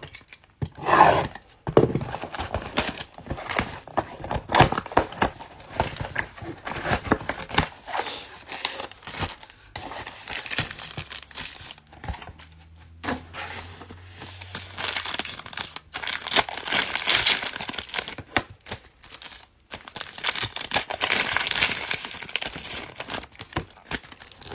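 Plastic wrapping of a Prizm football card mega box and its packs crinkling and tearing as they are opened by hand, in a long run of irregular crackles.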